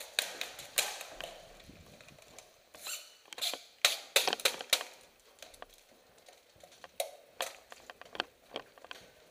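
Footsteps and knocking gear on a bare hard floor: a run of sharp, irregular clicks and knocks, busiest and loudest from about three to five seconds in, with a few more near the end.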